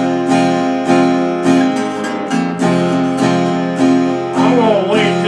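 Acoustic guitar strumming a steady country song accompaniment, with regular strokes about every half second or so. Near the end a wavering melody line comes in over the chords.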